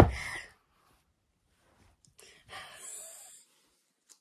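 A sharp thump at the very start as a plush puppet knocks against a clear plastic storage bin, followed about two and a half seconds later by a soft hiss lasting under a second.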